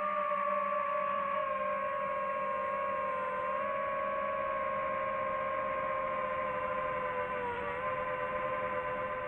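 DJI FPV drone's motors and propellers whining steadily, the pitch wavering slightly.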